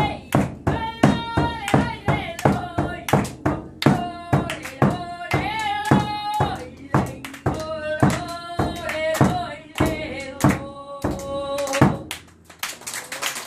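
A Sámi joik: one voice singing held, gliding notes over a steady drum beat of about three strikes a second. The song stops near the end.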